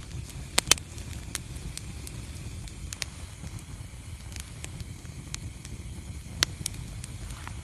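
Wood fire crackling in a fireplace: a steady low rumble of flames with scattered sharp pops, the loudest a quick pair just under a second in and another about six seconds in.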